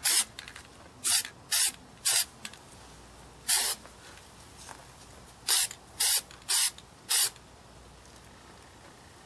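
Aerosol spray-paint can hissing in nine short bursts, each under half a second: one at the start, three close together about a second in, one near the middle, then four in quick succession.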